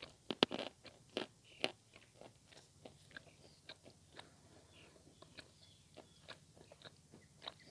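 Vasilpole chalk being bitten and chewed close to the microphone. Several loud, crisp crunches come in the first couple of seconds, then a run of smaller crunching clicks follows as it is chewed.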